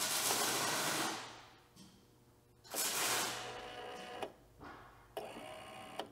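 Sharpening-stone drive's electric cylinder motor on a John Deere 6000-series chopper running in two short bursts of about a second each as it moves the rod, followed by a few light clicks.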